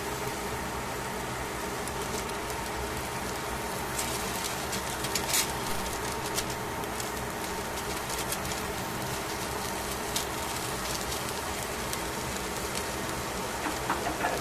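Tongs and a wooden spatula clicking and rustling against aluminium foil in a metal pan as pieces of fish are moved. The clicks come mostly from about 4 to 7 seconds in and again just before the end, over a steady hum and hiss.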